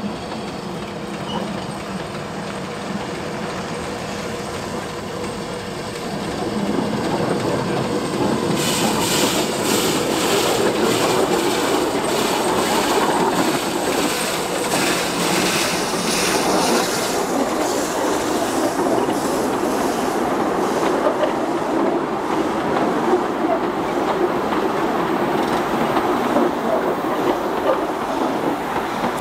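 Narrow-gauge steam locomotive passing close by, its exhaust beating in a regular rhythm about twice a second as it goes past, followed by its open cars rolling by with wheel and rail-joint clicks.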